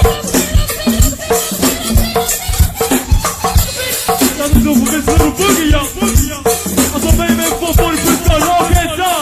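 Live go-go band playing: a steady, driving drum beat with shaker-type percussion, and a voice chanting over the band in the second half.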